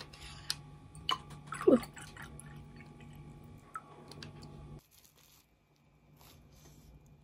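Oat milk trickling from a nearly empty carton into a glass, with drips, a glug about two seconds in and small handling clicks as the carton runs dry; it drops to a faint hush about five seconds in.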